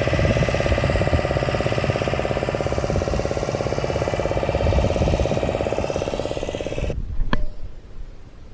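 A small engine running steadily with a rapid knocking pulse, cutting off abruptly about seven seconds in; a single sharp click follows.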